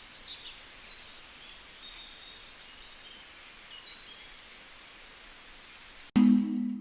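Small birds chirping and trilling in short high calls over a steady outdoor background hiss. About six seconds in, this cuts off abruptly and a loud held musical note begins.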